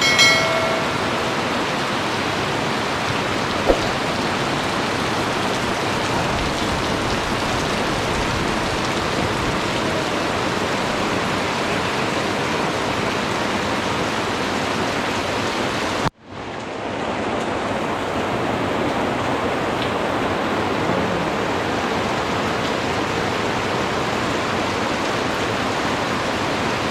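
Steady, heavy rainfall hissing evenly, with a single sharp click about four seconds in. The sound cuts out for a moment about sixteen seconds in, then fades back up to the same steady rain.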